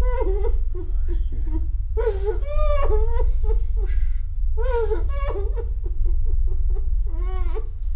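A woman whimpering and sobbing in short, high, wavering cries, with a steady low hum underneath.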